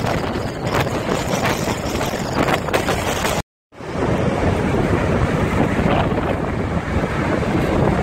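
Gullfoss waterfall's steady noise of falling water, mixed with wind buffeting the microphone. The sound cuts out for a moment about three and a half seconds in, then resumes.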